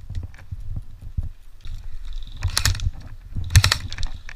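Airsoft rifle fired in two short rapid bursts, about a second apart, the second the louder. Low knocks of movement and gear handling come throughout.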